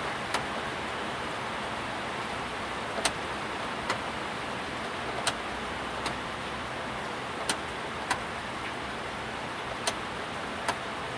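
Steady hiss of fuel being pushed by the car's electric fuel pump through a hose into a plastic bottle, with sharp ticks at uneven intervals about once a second. The flow stays strong, a sign that the fuel pump still holds good pressure.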